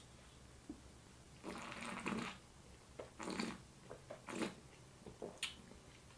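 Faint breath and mouth sounds of a person tasting wine from a glass: a long noisy draw of air about one and a half seconds in, then a few shorter ones.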